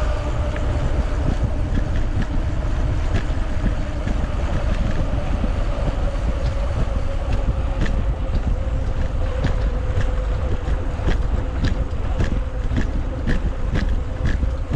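Wind buffeting the microphone of a camera on a moving bicycle, a loud steady rumble. Under it runs a steady hum that sinks slightly in pitch, with scattered clicks and ticks that come more often in the second half.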